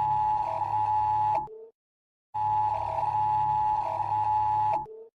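Electronic warning signal: a steady high tone with a lower note dipping in twice, sounded in blasts of about two and a half seconds over a low hum. Each blast ends in a short lower blip, followed by a gap of under a second before the next.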